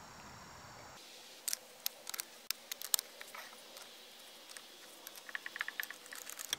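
Metal clicks of a 14 mm wrench turning the nut on a broken-spark-plug porcelain extractor, its centre shaft held by a ratchet: scattered faint clicks, then a quicker run of clicks near the end. Turning the nut draws the broken ceramic insulator out of the spark plug's electrode shield.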